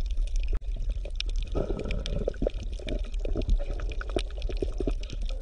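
Water bubbling and gurgling, an irregular stream of small pops and splashes over a steady low hum.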